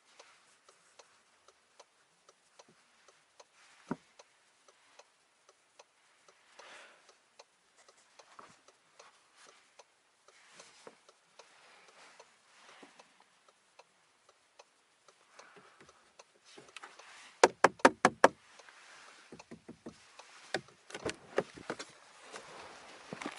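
Faint clicks and rustles of handling inside a car cabin with no engine running. A little past the middle comes a quick run of about six sharp, loud clicks, and more scattered clicks follow near the end.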